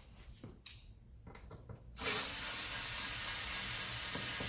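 A screwdriver with a size 10 bit backing out one of the green screws from an Xbox One S: a few faint clicks, then a steady hissing whirr starting about two seconds in and lasting about three seconds.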